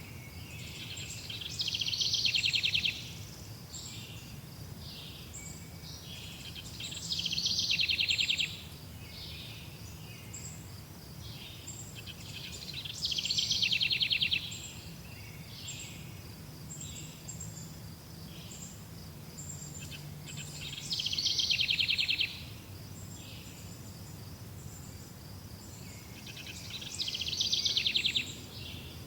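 Forest birdsong: a loud, rapid trill comes about every six seconds, five times, with short high chirps in between. A low steady rumble of background noise runs underneath.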